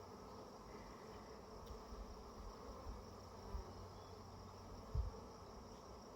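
Honey bees buzzing steadily over an open hive, a colony the beekeepers find agitated. A brief low bump about five seconds in.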